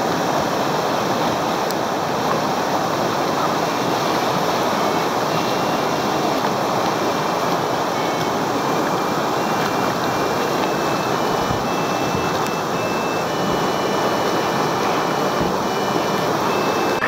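Whitewater of a mountain river rapid rushing and churning: a steady, loud rushing noise.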